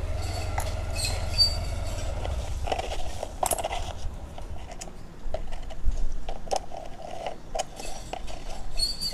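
Metal coins clinking and sliding against one another as a hand picks through a pile of them, with scattered sharp clicks and short metallic rings.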